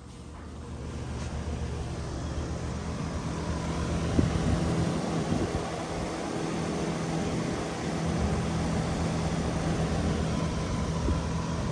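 Bryant heat pump outdoor unit running in heat mode: a steady hum from the compressor with the rush of the condenser fan, coming up to full level over the first second or two.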